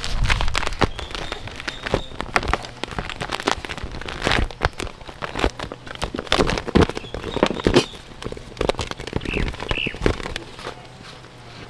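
A rapid, irregular series of clicks, knocks and rustles, like things being handled and set down.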